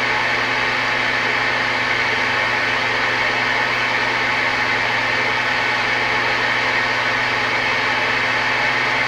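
Tram Titan II CB base station's speaker putting out steady static hiss with a low, even hum under it, the receiver open between transmissions.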